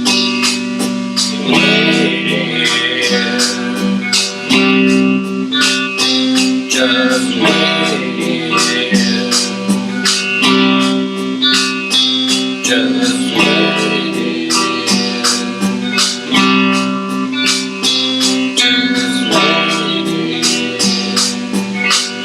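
Instrumental passage of a folk song: guitar strummed in a steady, dense rhythm over held notes, with a gliding line rising and falling every few seconds.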